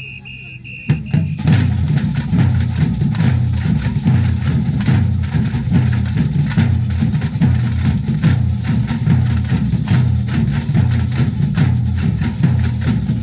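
A group of large drums starting up about a second in and playing a fast, steady rhythm, the deep low drum beats loudest, with lighter strikes over them.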